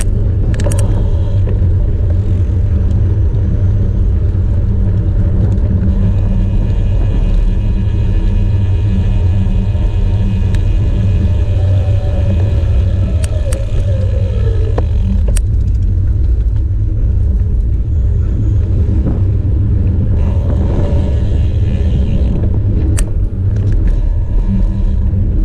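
Wind buffeting the microphone of a camera riding on a moving bicycle: a steady low rumble, with the hiss of tyres rolling on asphalt.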